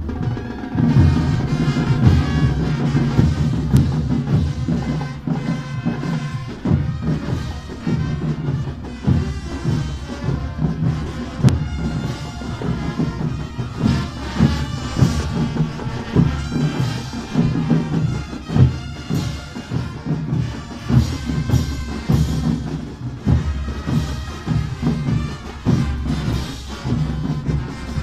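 Marching band playing a march, sustained brass notes over a steady drum beat.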